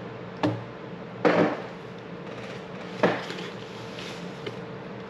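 Handling noise as drone-kit items are moved and set down: three sharp knocks with a short clatter, about half a second, 1.3 seconds and 3 seconds in, over a faint steady hum.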